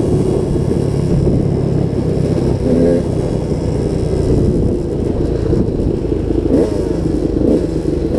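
Dirt bike engine running while riding along, its note rising and falling with the throttle.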